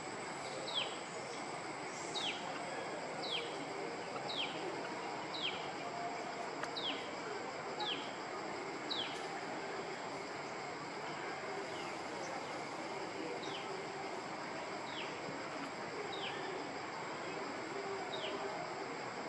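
A bird repeating a short, high, falling whistled note about once a second, with a pause of a few seconds midway. Underneath are a steady high-pitched whine and outdoor background noise.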